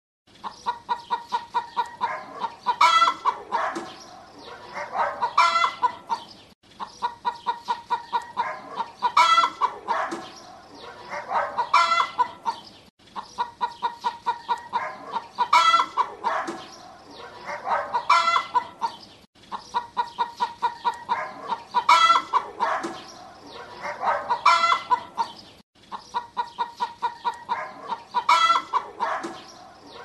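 Rooster clucking in quick runs of short clucks, the same pattern repeating every six or seven seconds.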